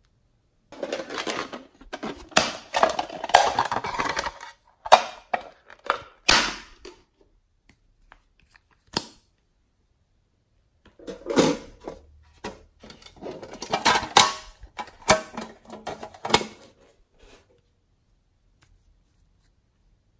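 Close, sticky crackling and clicking of glossy slime and small supplies being handled, in two stretches with a quieter gap between and sharp clicks standing out.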